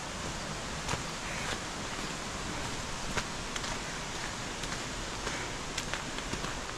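Footsteps crunching on a gravel and stone trail, a scatter of short sharp steps over a steady rushing background noise.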